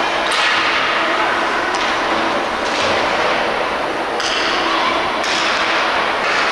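Ice hockey game sound in a rink: a steady hiss of skates on the ice, with several sharp knocks of sticks and puck and a couple of longer scraping bursts about four and five seconds in.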